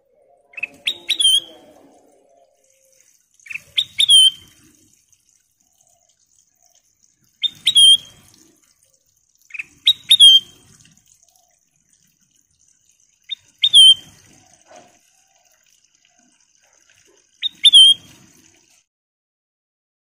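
A caged kutilang emas, a black-crested yellow bulbul, singing six short phrases roughly every three to four seconds, each a quick run of clear whistled notes ending in a looping note.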